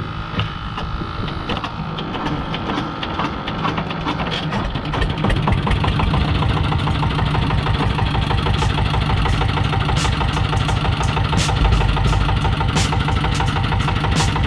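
An outrigger fishing boat's inboard engine running with a steady stroke rhythm. It picks up and grows louder over the first few seconds, then holds steady as the boat gets under way.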